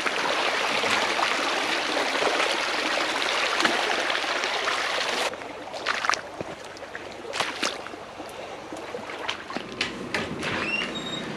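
Water rushing and splashing, cutting off abruptly about five seconds in; after that, quieter scattered ticks and clicks.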